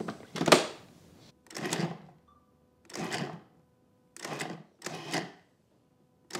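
A 14-cup food processor pulsed in six short bursts, each about half a second and roughly a second apart, its blade chopping whole red onions. The on-off pulsing, not a steady run, is what turns the onions into a fine mince.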